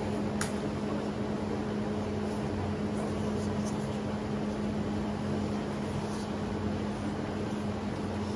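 A steady low machine hum over a constant hiss, like a fan or ventilation unit running, with one faint click about half a second in.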